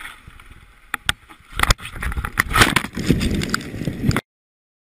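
Bicycle crash on a wooden boardwalk: a couple of sharp clicks, then hard knocks about a second and a half in, followed by a couple of seconds of clattering and scraping that cuts off suddenly.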